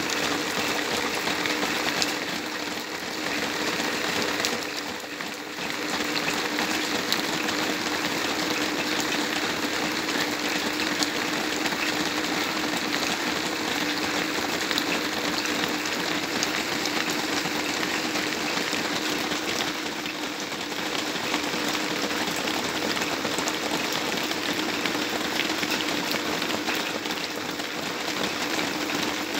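Steady rain falling, a dense patter of drops with a faint low steady hum underneath.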